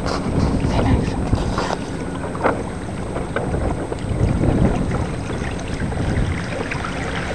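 Steady wind noise buffeting the microphone over water moving along the hulls of a small Hobie sailing trimaran, with a few short ticks in the first seconds.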